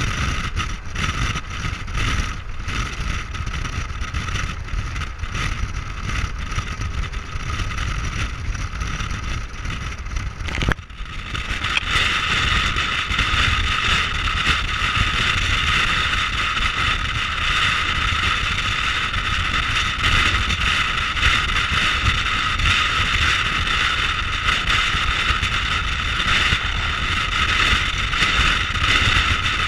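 Wind rushing over the microphone of a camera mounted outside a pickup at highway speed, with road and tyre noise underneath. About eleven seconds in the sound cuts to a louder, hissier rush.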